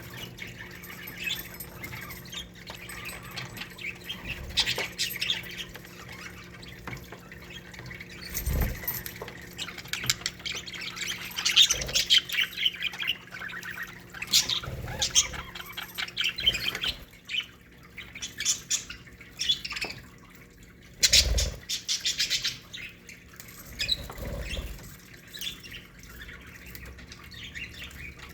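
A colony of budgerigars chattering and warbling with many overlapping squawks and chirps, and a few dull thumps along the way. A faint steady hum lies underneath.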